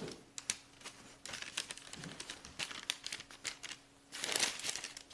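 Parchment paper crinkling and rustling under fingers as small balls of cookie dough are slid and set down on a lined baking sheet. There are irregular light ticks and taps, and a longer rustle about four seconds in.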